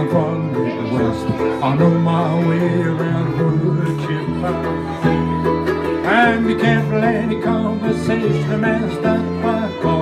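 Acoustic string band playing an up-tempo country-bluegrass instrumental passage: fiddle over strummed acoustic guitar and ukulele, with a fiddle slide about six seconds in.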